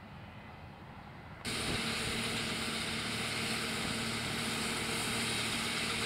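Combine harvester running at a distance. About a second and a half in, a much louder sound takes over: a John Deere tractor's engine running steadily under the loud, even rush of its grain-cart auger unloading shelled corn into a semi grain trailer.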